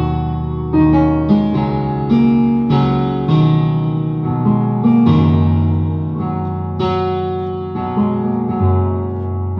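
Digital keyboard playing an instrumental piece: chords with a moving bass line, each new chord struck sharply and left to ring and fade before the next.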